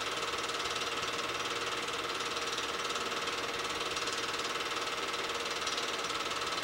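8mm film projector running, its motor and film-advance mechanism making a steady, fast, even whirring clatter that does not change.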